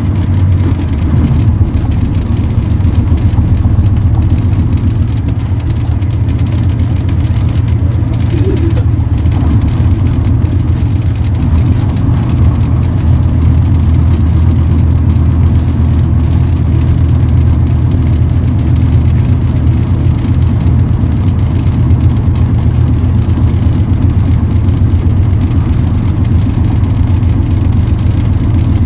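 Bristol K5G bus's Gardner five-cylinder diesel engine running steadily under way, a loud, even low drone with little change in pitch, heard from aboard the moving bus.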